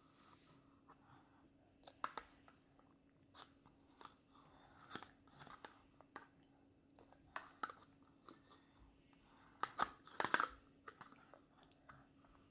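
A toddler eating yogurt with a metal spoon from a plastic cup: short scattered sounds of the spoon scraping and tapping in the cup and wet mouth and eating noises, coming every second or two. The loudest cluster comes about ten seconds in.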